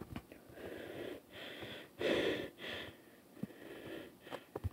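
A boy breathing hard right at the phone's microphone: four or five heavy, breathy rushes of air, the loudest about two seconds in.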